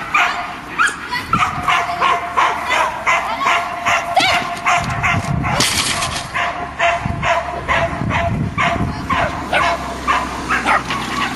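A dog barking over and over, about two to three barks a second, without a break.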